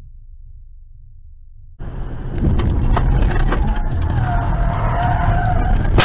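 A moving car's road and engine noise, recorded by a dash cam. A low rumble fills the first couple of seconds. About two seconds in, a much louder rush of tyre and engine noise takes over, scattered with sharp knocks and clicks.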